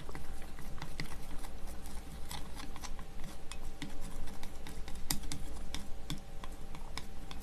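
Light, irregular clicks and taps of chopsticks and spoon against dishes at a meal table, several small ticks a second.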